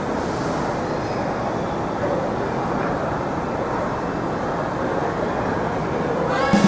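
Steady, loud background din of a busy public space, an even rumble with no distinct events. Music comes in right at the end.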